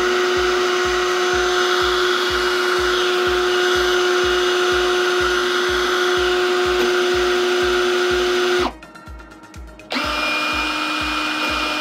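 WORX WU177 Switchdriver 2.0 20V cordless drill motor running steadily at speed. It stops for about a second near the end, as the rotating twin-head chuck is swapped over, then runs again at a slightly lower pitch. Background music with a steady beat plays underneath.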